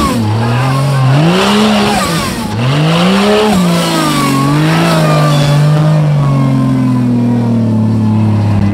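An off-road 4x4's engine revving up and falling back several times, then holding at a steady speed from about six seconds in.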